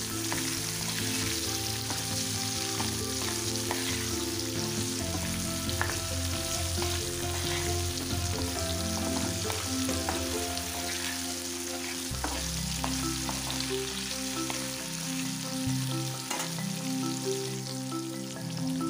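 Halved new potatoes sizzling steadily in hot oil in a frying pan, with a few short scrapes and clicks as a spatula turns them.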